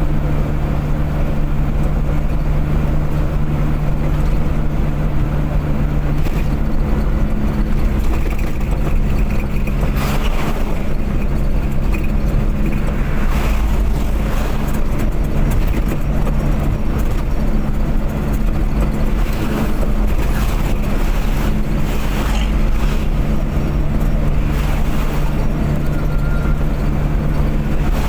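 Car engine running steadily at cruising speed with constant road and tyre noise, the engine note shifting slightly about six seconds in, and a few brief swells of noise along the way.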